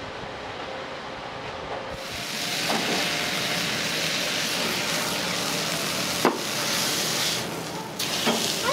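Food sizzling on a hot teppan iron griddle, the sizzle swelling up about two seconds in, with two sharp clicks of steel utensils against the griddle later on.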